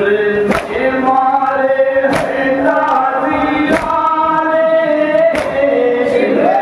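A noha, a Shia mourning lament, sung by an amplified male lead reciter with a crowd of men chanting along. Sharp, unison chest-beating strikes (matam) land about every one and a half seconds.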